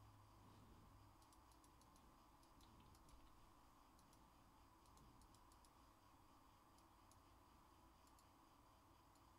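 Near silence with faint scattered clicks of a computer mouse and keyboard, a few at a time with pauses between.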